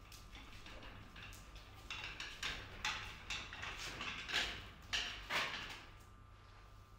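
Footsteps and knocks on a hard floor, played back from a music video: a run of sharp, irregular taps between about two and five and a half seconds in.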